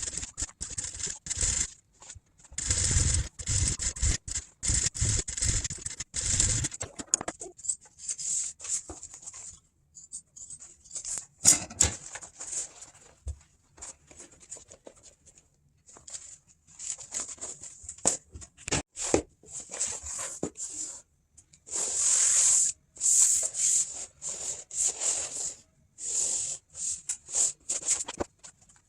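Upholstery material being handled and worked, in irregular short bursts of rustling and scraping, with a denser, louder stretch early on.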